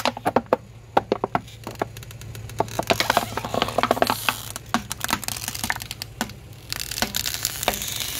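Hollow shiny plastic pumpkin ornament cracking and crumpling under a slowly rolling car tyre: a long run of sharp cracks and crackles, with bursts of louder snaps about three to four seconds in.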